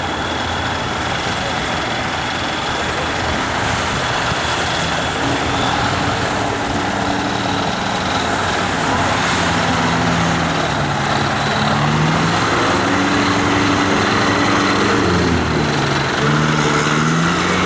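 Off-road trial vehicles' engines running hard in deep mud, revving up and down over and over in the second half as the driver works the throttle to get the stuck vehicle moving, over a steady noisy wash of spinning tyres and churned water.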